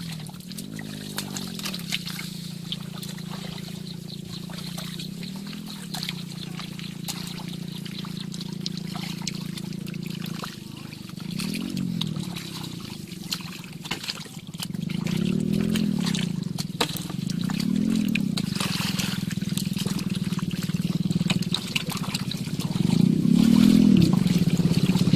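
A small engine running steadily, its pitch rising and falling several times and getting louder in the second half, with water trickling and splashing.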